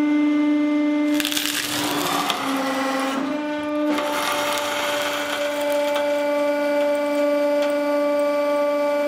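Hydraulic press pump running with a steady droning whine while the ram crushes a mobile phone. Crackling and cracking of the phone breaking from about one to three seconds in, with the whine dipping briefly in pitch during the crush, then running steady again.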